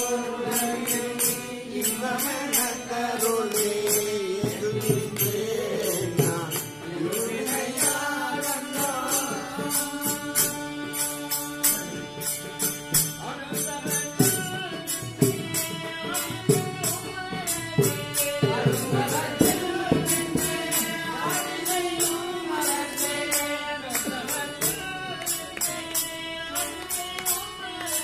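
Devotional group chanting or singing, with a jingling metal percussion keeping a steady beat throughout.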